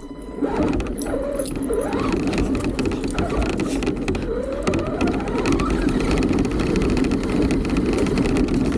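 An RC car's motor whines as it drives off about half a second in, its pitch rising and falling with the throttle, over a steady noise of its tyres rolling on dirt and dry leaves.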